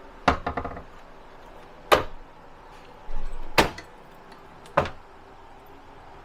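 Storage cabinet doors in an RV being opened and shut: four sharp knocks a second or so apart, the first followed by a brief rattle.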